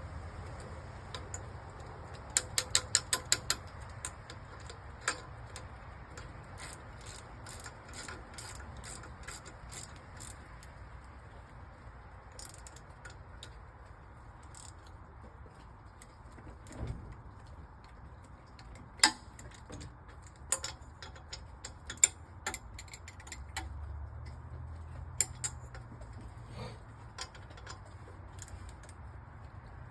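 Hand tools clicking and clinking on metal during engine work: a quick run of about six sharp clicks a few seconds in, more clicks in a loose rhythm soon after, and scattered single clinks later, over a low steady hum.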